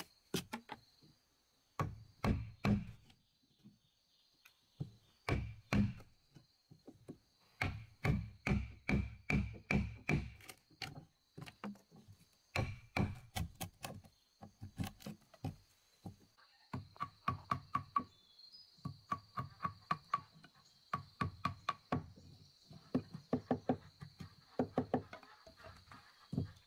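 Wood chisel being struck repeatedly to chop a mortise in a timber post: sharp knocks in quick runs of several blows a second, with short pauses between runs.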